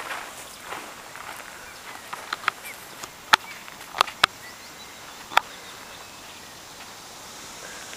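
Footsteps on rough outdoor ground, followed by a handful of short sharp clicks spread over a few seconds, over a faint steady outdoor background.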